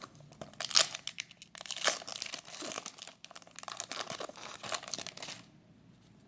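A Yu-Gi-Oh booster pack's foil wrapper being torn open and crinkled by hand: a run of crackly tearing and rustling for about five seconds.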